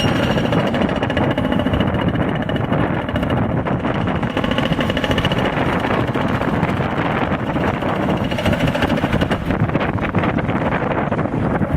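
Hydraulic breaker hammering concrete in rapid blows, with the machine's engine running and strong wind buffeting the microphone.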